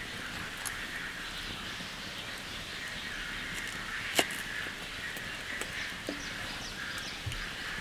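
Steady rain hiss with scattered drops tapping, and one sharper tap about four seconds in.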